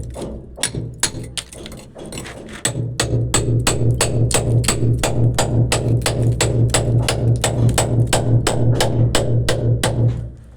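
Music with a steady percussive beat, about four beats a second, over a low sustained bass.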